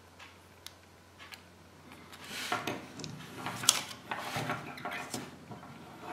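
Small plastic Kinder Surprise toy figure being handled and fitted together: light plastic clicks and rubbing, with rustling against paper on a wooden tabletop. It is faint at first and gets busy about two seconds in, with one sharper click near the middle.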